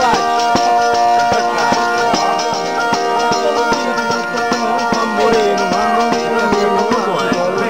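Zampogna bagpipe playing a folk tune over its steady drones, with a tamburello frame drum beating the rhythm.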